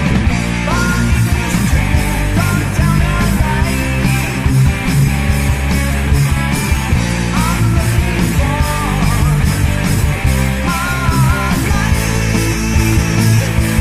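Heavy metal band playing, in a rough studio demo recording: guitars, bass and drums with a steady beat. A higher melody line with bends and vibrato comes in several times over the riff.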